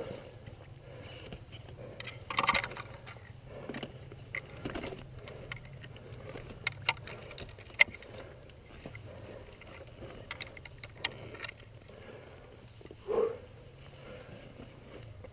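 Scattered clicks, knocks and rustling from gloved hands handling a KTM enduro motorcycle that lies on its side, with two louder scrapes or rustles, one about two and a half seconds in and one near the end, over a steady low hum.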